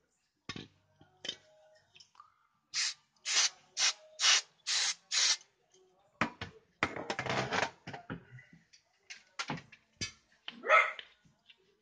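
Wiping strokes over the stamped chassis-number plate on a car's body panel: about six quick rubs a little after the start, then a longer scrubbing stretch and scattered knocks. A short, loud vocal sound comes near the end.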